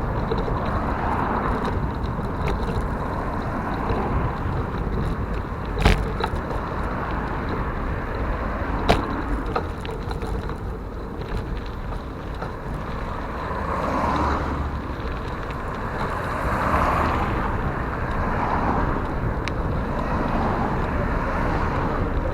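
Rushing wind and road noise on a riding cyclist's microphone, with cars passing. Two sharp knocks a few seconds apart.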